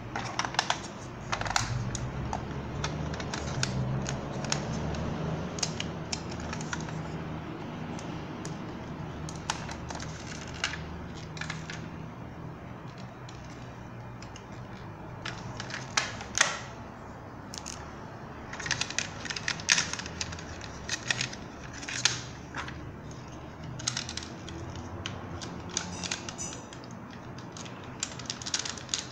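Hard plastic clicking, tapping and snapping as a ThunderCats ThunderRacer toy vehicle is handled, its clear canopy and parts moved and fitted. The clicks come irregularly, some in quick clusters.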